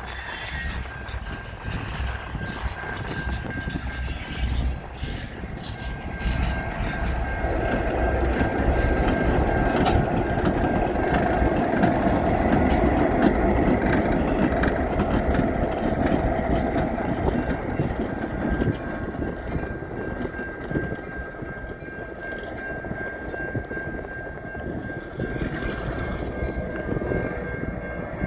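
Herzog tie train rolling slowly past, its wheels clicking and clattering over the rails. The rumble swells and is loudest in the middle, with a thin steady high ringing tone throughout.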